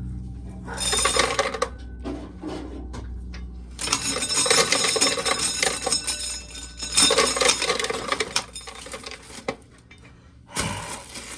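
Spells of busy rattling and clinking, like hard small objects shaken and knocked against metal: a short burst about a second in, a long stretch from about four seconds, and another burst near the end. A low steady hum runs under the first few seconds.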